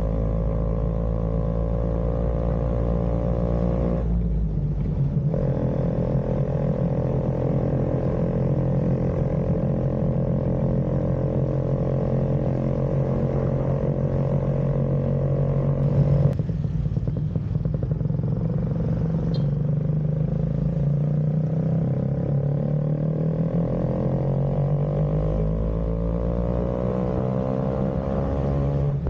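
Vespa Extreme scooter's single-cylinder two-stroke engine running under way, its pitch rising and falling as the throttle changes, through an exhaust that the owner finds choked and restrictive. A brief knock comes about sixteen seconds in.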